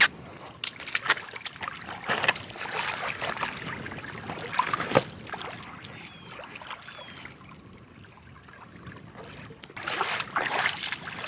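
Water sloshing and splashing as an inflatable air mat is pushed down into shallow lake water, submerged to find a slow leak. Irregular splashes and knocks for the first few seconds, quieter for a while, then a louder rush of water about ten seconds in as the mat is lifted out.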